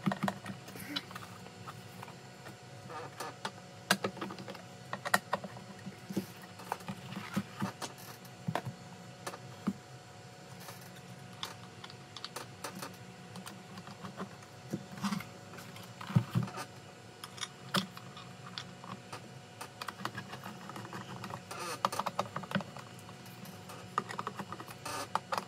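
Scattered light clicks, taps and rustles of hands at work, cutting a foam pad and fitting it into an e-bike battery case, irregular throughout.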